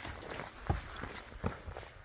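Footsteps of someone walking: two clear steps about three-quarters of a second apart, over a low rumble.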